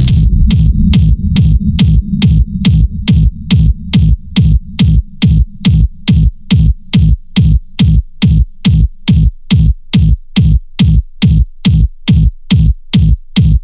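Industrial electronic music: a fast, steady beat of nearly three pulses a second, each a low thud topped with a short burst of hiss. A low drone sits under the first few seconds, then drops away and leaves the pulses standing alone.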